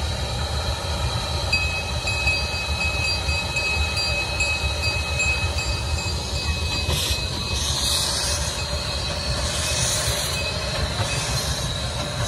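Miniature steam locomotive pulling its train slowly away: a steady low rumble with a thin high squeal, and hissing bursts of steam about seven and ten seconds in.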